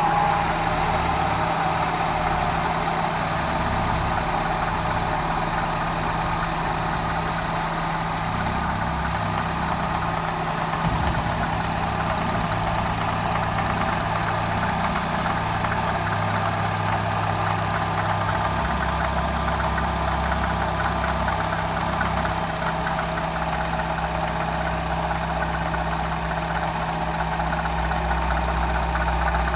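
Citroën DS3 THP turbocharged petrol engine idling steadily, with a faint high whine that eases down in pitch in the first second or so. This is the noise the owner finds strange.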